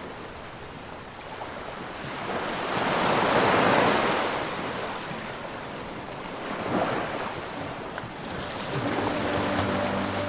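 Small waves breaking and washing up onto a sandy beach, swelling loudest about three to four seconds in and again around seven seconds. Soft music comes in near the end.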